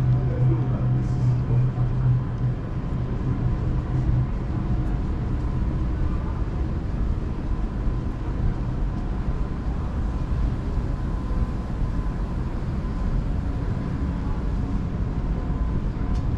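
Steady low city rumble with no single event standing out. A deeper hum sits over it at first and fades out within the first few seconds.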